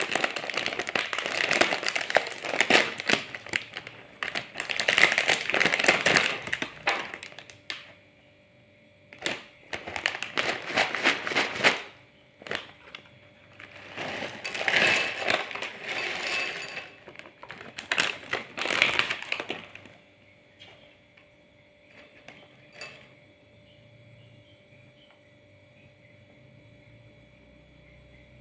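Crunching and crackling of crispy Miaow Miaow snack crackers, dense for the first several seconds, then in four shorter bursts, stopping about two-thirds of the way in and leaving a faint steady hum.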